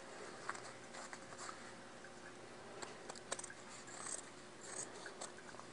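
Faint scissors trimming fabric and zipper ends, with light scattered snips and rustling of cloth over a low room hum.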